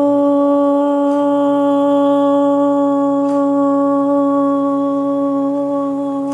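One voice chanting a long 'Om', held steadily on a single note.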